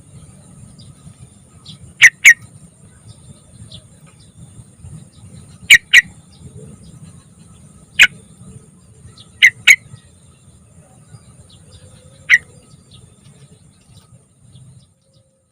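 Yellow-vented bulbul (trucukan) giving short, sharp call notes, mostly in quick pairs, every few seconds over a faint steady hum.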